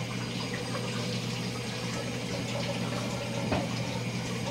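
Kitchen sink tap running steadily while hands are washed under the stream, with one brief knock about three and a half seconds in.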